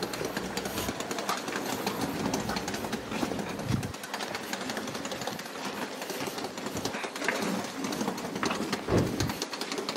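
Rapid, steady rattle of wheeled luggage rolling along a concrete footpath.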